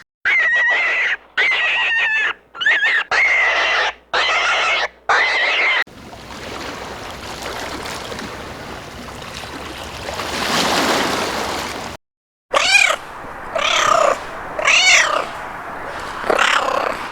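Domestic cats meowing: about six short calls in quick succession, then several seconds of noise without calls, then a further run of meows that rise and fall in pitch.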